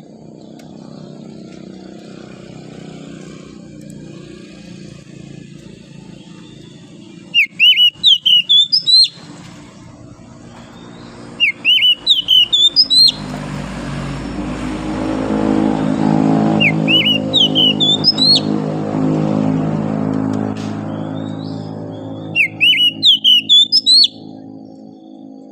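Oriental magpie-robin singing in four short bursts of quick, whistled notes sweeping up and down, each lasting one to two seconds. Under it runs a steady low engine hum that swells into a passing vehicle's noise in the middle and fades again.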